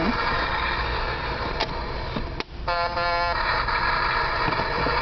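Electronic sound effects from a battery-powered toy rescue truck's small speaker: a steady, noisy engine rumble, broken by a short click and a brief dropout, then a horn honk lasting about half a second just after the middle.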